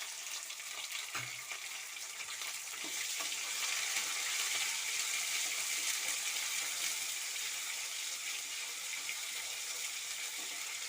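Green chillies and a mustard-seed, dal and curry-leaf tempering sizzling steadily in hot oil in a pan, with a few faint ticks.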